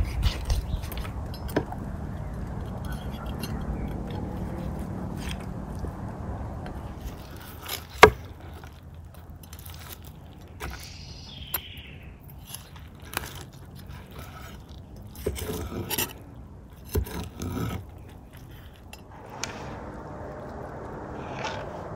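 Large knife chopping and cutting roasted lamb ribs apart on a wooden board: scattered knocks and scrapes, with one sharp chop about eight seconds in and a cluster of knocks later on.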